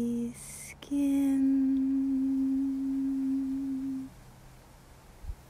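A woman singing unaccompanied: a short held note ends just after the start, then she sings the word 'skin', holding it as one long clear, steady, nearly pure note for about three seconds before it stops.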